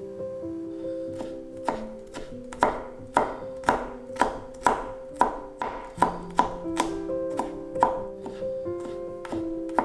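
Knife chopping on a cutting board in a steady rhythm of about two strokes a second, starting a little under two seconds in, over background music with held notes.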